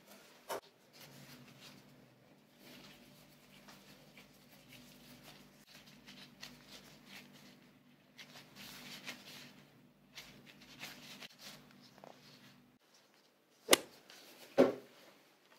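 Faint rustling and handling noises from plastic-gloved hands shaping nigiri sushi, over a low steady hum that cuts off near the end. Two sharp clicks sound about a second apart near the end.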